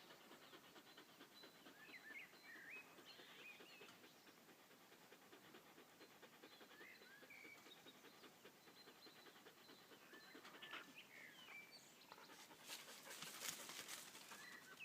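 Faint dog panting, with scattered short bird chirps and a brief burst of rustling near the end.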